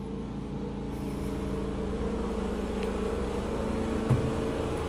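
Steady hum of running machinery with level tones and a low drone, growing slightly louder; a light knock about four seconds in.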